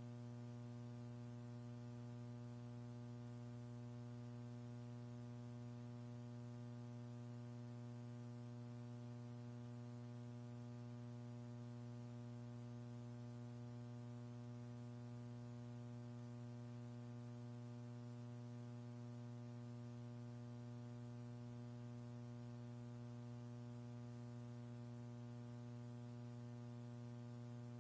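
Steady electrical mains hum with a stack of even overtones over a faint hiss, unchanging throughout: line noise on the countdown audio feed between callouts.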